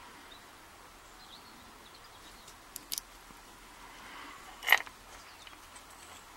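Small metal clicks from an American Lock Series 20 padlock's brass plug being pushed out of its housing with a plug follower: two faint ticks about three seconds in, then one sharper click a little before five seconds in as the plug slides free.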